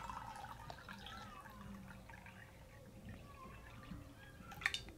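Water poured steadily from two glasses into two ceramic mugs, a faint trickle and splash as the mugs fill. A small click comes near the end.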